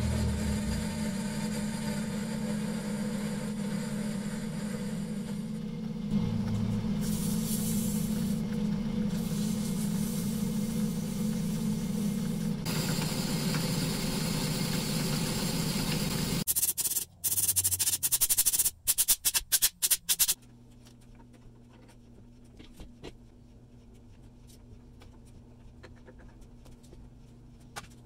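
Metal lathe running steadily while turning a circular-saw commutator round again, with a low motor hum and a cutting hiss that grows brighter at times. About two-thirds of the way in it gives way to a few short, chopped bursts, then to quieter light clicks of small parts being handled.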